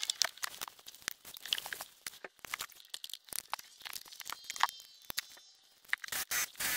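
Handling noises from fitting an aluminum pedal cover onto a car's accelerator pedal: a string of light, irregular clicks, taps and scrapes, with a brief pause and then a sharper cluster of clicks near the end as a drill is set against the pedal.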